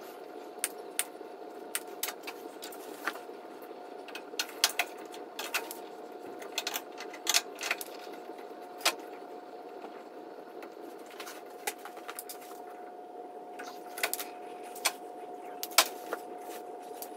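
Irregular small clicks and taps of wires, crimp terminals and hand tools being handled while a power cord is wired into a table saw's switch box, over a steady faint hum.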